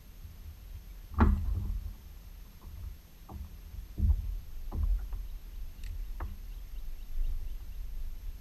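Hollow knocks and thumps on a plastic sit-on-top kayak's hull, scattered and irregular, the loudest about a second in, over a steady low rumble.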